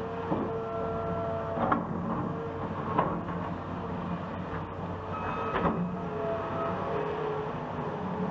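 Heavy road-construction machinery running steadily, with squealing metal tones drifting in and out and a few sharp clanks.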